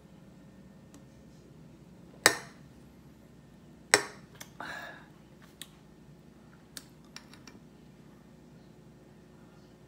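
An aluminium beer can set down on a glass-topped table: two sharp clinks about a second and a half apart, each ringing briefly, then a few faint light clicks.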